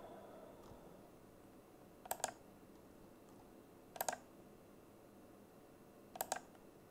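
Computer mouse clicking three times, about two seconds apart, each a quick double click, as parts are selected in CAD software.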